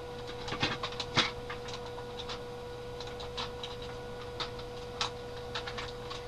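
Irregular light clicks and knocks of hard plastic Transformers toy parts being handled and picked up, the sharpest about a second in, over a steady hum.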